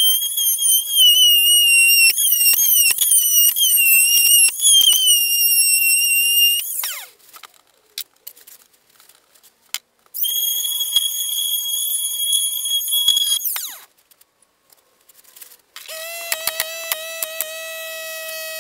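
Corded electric power tool whining at high pitch in three runs with short pauses between them, its pitch wavering as it works; the last run is lower and carries rapid clicking.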